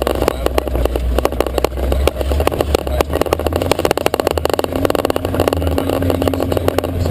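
Jeep Wrangler YJ driving a rough off-road trail: the engine runs under a steady low rumble, with constant rattling and knocking from the vehicle. A steady hum joins in about five seconds in.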